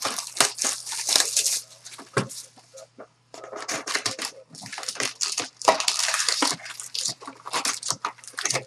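Plastic shrink wrap being torn off a sealed trading-card box and crumpled in the hands, crinkling in irregular bursts with a short pause about three seconds in.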